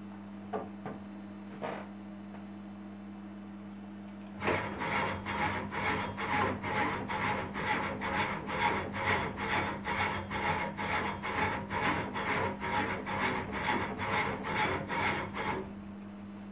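Delta robot's 50 W AC servo motors and 50:1 harmonic reducers driving the arms in rapid back-and-forth moves: a rhythmic rasping whir, about two to three strokes a second, starting about four seconds in and stopping abruptly near the end. A steady low hum runs underneath, with a few light clicks near the start.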